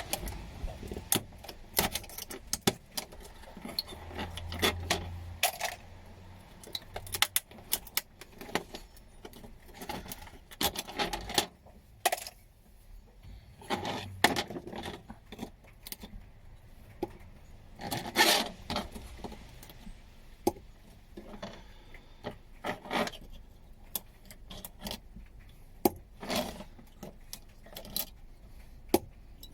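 Irregular clinks, taps and rattles of small metal and electronic scrap parts being handled and dropped on a workbench, with light rubbing and scraping between them.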